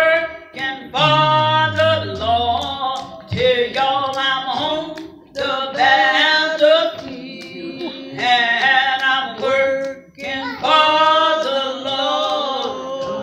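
An elderly woman singing a gospel song unaccompanied into a handheld microphone, in long held notes that bend and waver in pitch, broken into several phrases by short pauses for breath.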